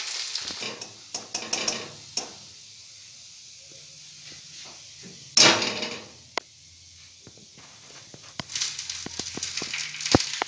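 Malpua sizzling in frying oil in a pan, with a spatula scraping and tapping against the pan. A short loud scrape comes about five seconds in as a malpua is lifted out, and the sizzling and sharp clicks pick up again near the end.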